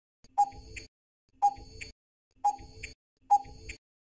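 Quiz countdown-timer sound effect: a clock tick-tock about once a second, four beats, each a sharp tick followed by a fainter click.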